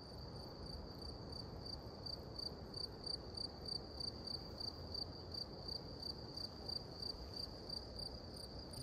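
Cricket chirping steadily in a high, even pulse of about three chirps a second, over a faint low rumble.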